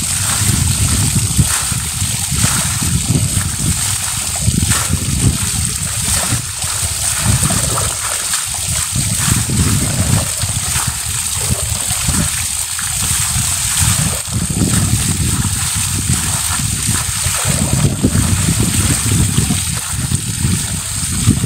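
Water splashing and trickling as skeins of freshly dyed sheep's wool are rinsed and lifted by hand in a basin fed by a garden hose, over a steady low rumble.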